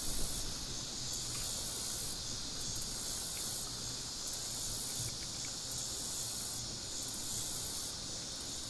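Summer insects singing in high-pitched pulses, one about every second and a half, over a steady high hiss.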